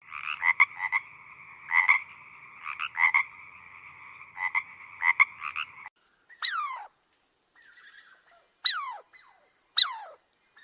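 Frogs calling: a steady, pulsing trill chorus for about six seconds, then three short calls that each fall steeply in pitch.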